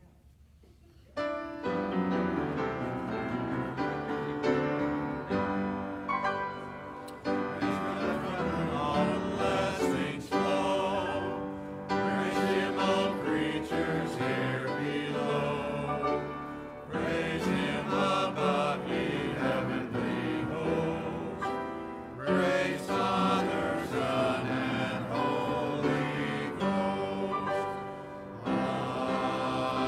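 Voices singing a hymn together with musical accompaniment, starting about a second in after near silence and going on in phrases a few seconds long.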